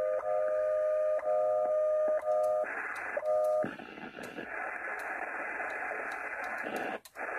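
Amateur radio transceiver's receiver audio playing through a Bluetooth speaker as the dial is tuned: steady whistling tones broken by clicks, then about halfway through a band of static hiss that drops out briefly near the end.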